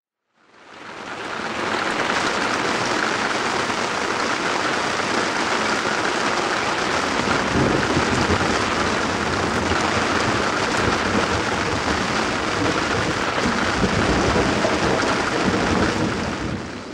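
Rain pouring down steadily on a moored sailboat, an even hiss that swells in over the first couple of seconds.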